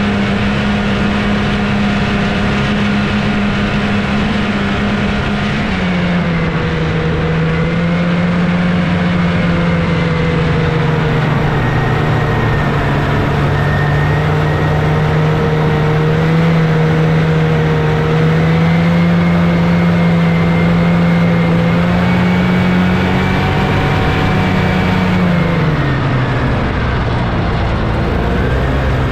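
1979 Scorpion Whip snowmobile's Cuyuna 440 two-stroke twin engine running steadily under way. Its pitch drops a step about six seconds in and falls again near the end as the engine speed comes down.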